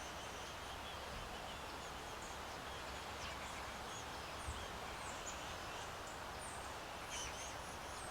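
Birds calling: many short, high chirps and little falling notes over a steady background hiss.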